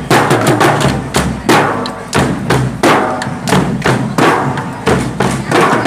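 Marching band drums, a bass drum and snare drums, beating a steady marching rhythm: strong strikes about twice a second with quicker snare strokes between.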